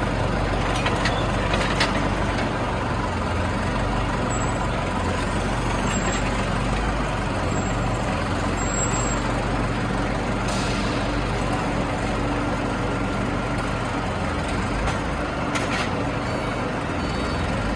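Factory machinery running steadily: a continuous mechanical hum and rumble, with a few faint knocks.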